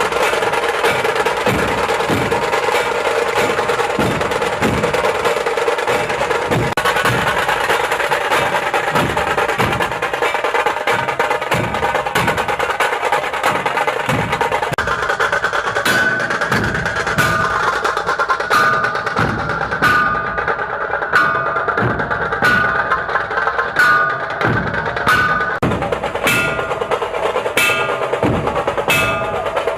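Music with a steady percussion beat; repeated bell-like ringing tones come in about halfway through.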